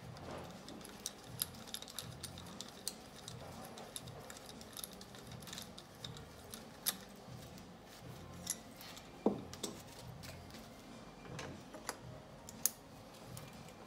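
Scattered light metallic clicks and clinks of a mechanic's hands and fittings on a bare Audi 3.0 TDI V6 diesel engine, as the compression-tester hose is moved from one cylinder to the next during a cold compression test.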